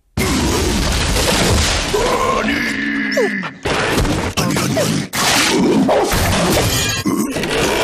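Loud crashing and banging as wooden furniture is smashed and household objects are knocked over, a dense clatter of thuds and crashes broken by two short pauses.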